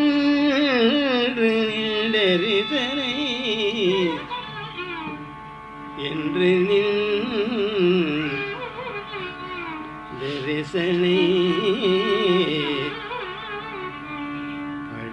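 Carnatic singing of a free-rhythm viruththam in raga Poorvikalyani: long melodic phrases with heavy sliding ornaments over a steady drone. The phrases pause briefly about four and nine seconds in.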